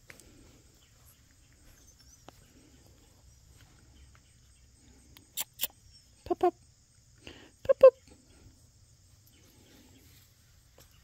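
A dog giving two quick pairs of short barks or yips about a second apart, the second pair louder, just after a couple of sharp clicks near the middle.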